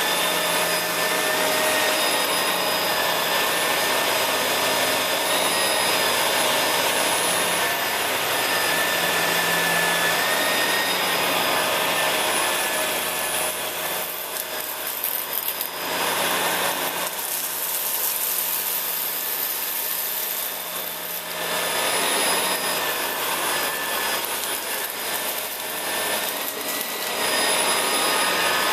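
Shark Rotator Lift-Away upright vacuum running steadily over carpet, its motor whine and suction hiss constant, picking up scattered test debris. In the second half the sound dips and comes back several times as the vacuum is worked back and forth.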